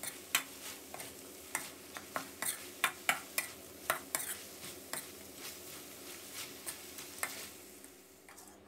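Metal spatula scraping and clinking against a wok as chicken, lemongrass and basil are stir-fried, over a faint sizzle. The clinks come irregularly, several a second at first, and thin out near the end.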